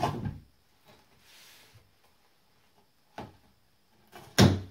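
Double-sided tape being peeled by hand off an aluminium track-saw rail: a tearing rip that dies away at the start, faint scratches and a small click in the middle, and one short, loud rip near the end.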